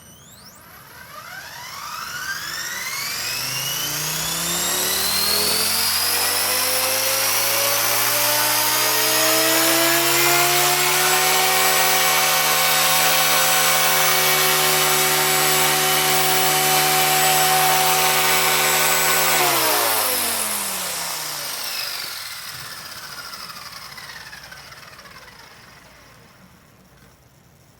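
Blade 180 CFX electric RC helicopter spooling up: the whine of the brushless motor and gear drive rises in pitch over about ten seconds along with the rotor's whirr, holds steady at full head speed, then the power is cut about twenty seconds in and it winds down with a falling whine.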